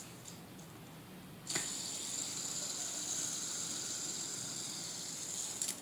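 Fidget spinner spinning on its bearing: a click about a second and a half in, then a steady high whir that cuts off suddenly just before the end.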